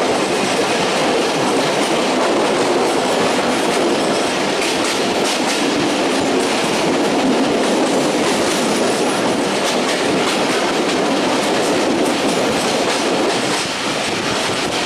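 Betna Express passenger train running along the track, heard from aboard: a steady, loud running noise with irregular wheel clicks over the rails.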